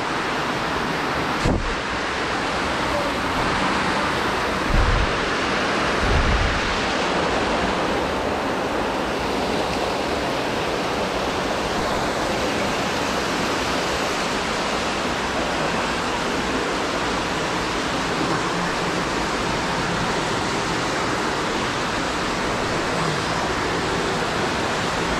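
Steady rush of running water, with a few short low thumps in the first seven seconds.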